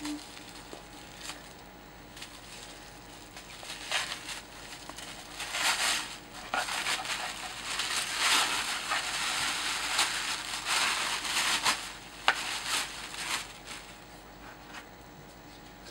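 Tissue paper rustling and crinkling as a small wrapped gift is unwrapped by hand, in uneven handfuls, with one sharp click near the end.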